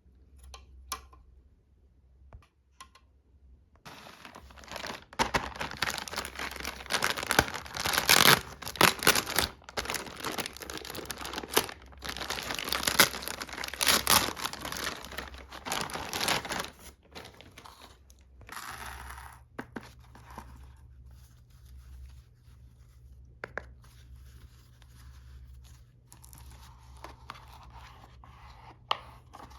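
Toy packaging being torn open and crinkled by hand: a dense run of tearing and rustling that starts about four seconds in and lasts about thirteen seconds, then quieter scattered clicks and handling sounds.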